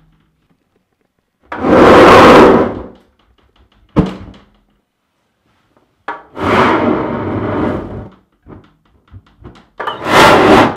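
Isopropyl alcohol vapour in a large water jug igniting with a whoosh, three times, each rush of flame lasting a second or two; the last comes near the end. A single sharp click falls between the first two.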